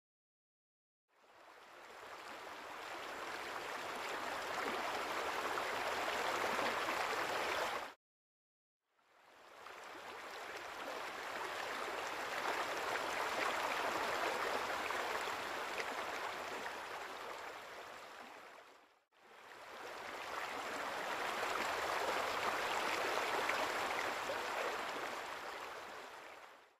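Even rushing noise like flowing water, in three long stretches that swell up and fade away, split by two short silences.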